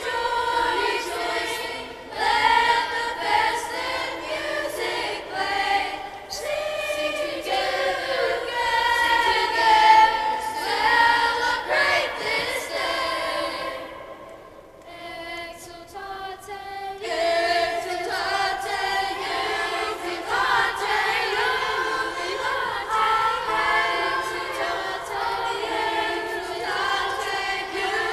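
A school choir singing, with several voices blending in sustained sung notes. It drops to a softer passage for about three seconds halfway through, then returns to full voice.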